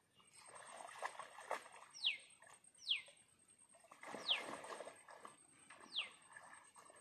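A bird calling: four short, sharp notes, each sweeping down in pitch, spaced unevenly over a few seconds, above a soft rustling.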